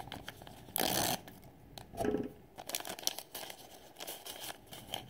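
Foil blind bag crinkling as it is torn open along its top seam: a short sharp rip about a second in, then a run of quick crackles as the bag is pulled apart.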